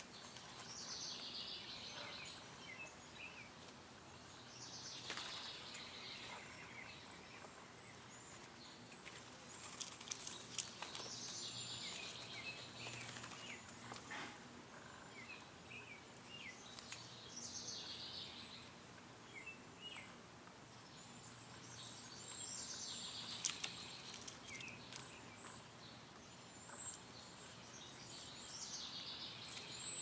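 Backyard birdsong: a songbird repeats a short song phrase about every five or six seconds over faint steady background hum, with a few sharp ticks in between.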